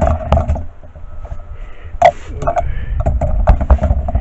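Low rumble with a series of sharp knocks and clicks.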